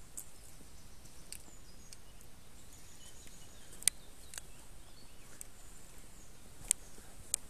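Woodland ambience: a faint steady hiss with faint bird chirps. About six sharp clicks come at irregular intervals, the loudest about four seconds in.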